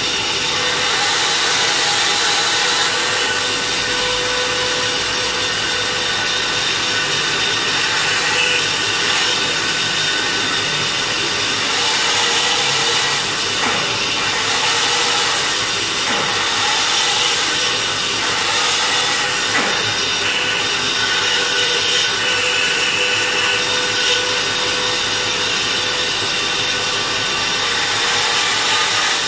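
Band saw running and cutting through a thick, curved piece of wood for an armchair frame: a steady machine hum with the hiss of the blade in the wood throughout.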